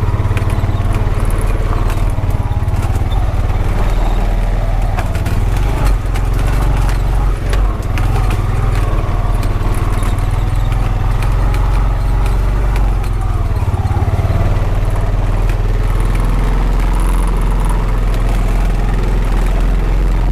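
Honda Pioneer 520 side-by-side's single-cylinder engine running steadily while driving, with frequent clicks and rattles from the machine as it goes.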